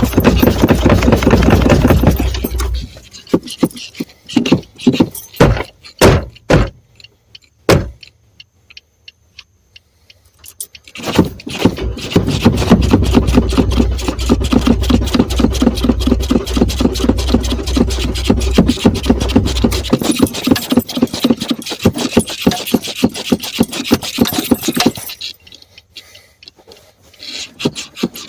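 Car engine being cranked by its starter motor without catching, a car that has run out of gas. A steady rhythmic cranking is followed by a few seconds of short stuttering bursts and a brief silence. Then comes a long crank of over ten seconds, which eases near the end.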